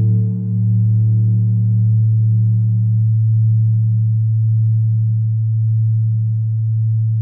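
A low, steady ringing tone with several overtones, held at an even level; it sounds like a sustained musical drone.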